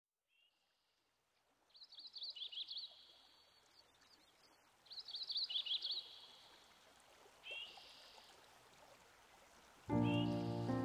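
A songbird singing: a warbling, high-pitched phrase given twice, with shorter call notes before and between, over faint background noise. Music comes in near the end.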